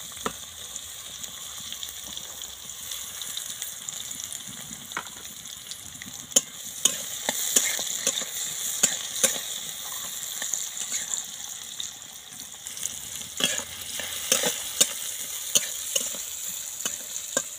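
Chopped onion sizzling in hot oil with fried nigella seeds in a karahi, stirred with a metal spatula that clicks and scrapes against the pan; the clicks come more often from about halfway through.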